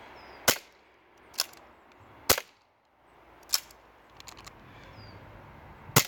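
CO2-powered airsoft pistol firing five sharp shots at uneven intervals of about a second, with a few faint mechanical clicks between the fourth and fifth.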